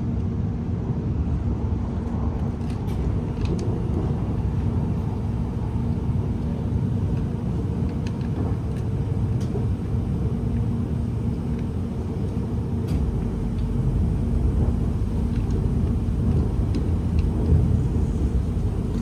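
Cabin running noise of a Class 701 Arterio electric train under way: a steady low rumble of wheels on rail with a faint hum, and a few light clicks. It grows slightly louder near the end.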